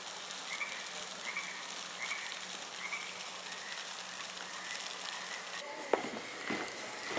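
Faint, regular chirping calls, about one every three-quarters of a second, over a steady outdoor hiss. Near the end there is a sharp knock, then footsteps on a wooden porch.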